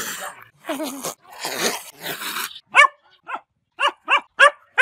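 A cat hissing and spitting with a low growl in it, then a dog barking in a run of short, sharp barks, about five of them from halfway through.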